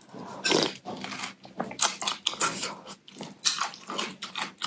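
A person eating naengmyeon, Korean cold noodles with cucumber in a chilled broth: wet slurps and chewing in short, irregular bursts.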